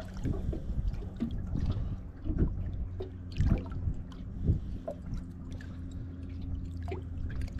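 Water sloshing and splashing against the side of an aluminium boat as a large flathead is held by the jaw in the water at the hull, with several short sharp splashes. A steady low hum runs underneath.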